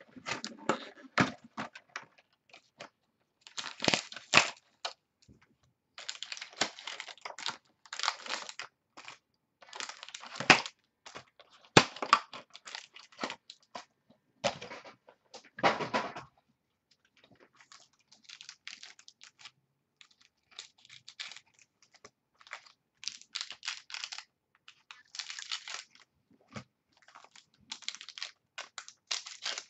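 2013 Playbook football card packs being opened by hand: wrappers torn and crinkled and cards handled, in repeated short rustling bursts with a few sharp clicks and brief pauses between.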